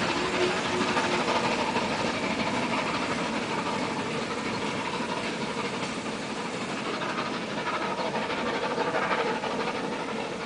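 The steam train hauled by the three-cylinder 141 TD 740 locomotive draws away up the grade as a steady rush of exhaust and running noise. It fades slowly as the train recedes.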